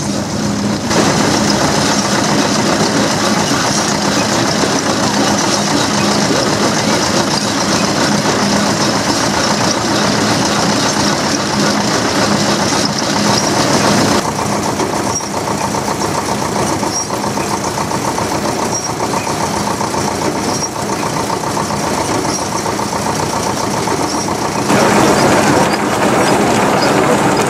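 Threshing set at work: a threshing machine belt-driven by a steam traction engine, running steadily with a constant low hum from its drum, belts and pulleys.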